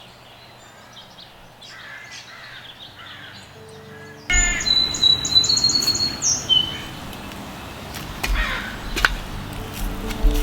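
Garden birds calling and chirping. About four seconds in the sound gets suddenly louder, with a fast run of high, rapidly repeated chirps followed by more calls.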